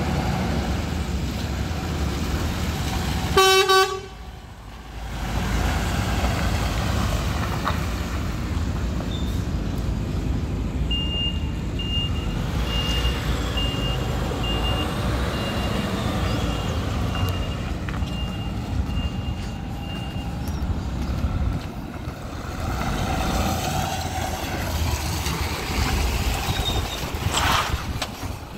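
DAF CF 480 tractor unit's diesel engine idling with a steady low rumble. A short horn blast about three and a half seconds in is the loudest sound, and in the middle a reversing alarm beeps about one and a half times a second for around nine seconds.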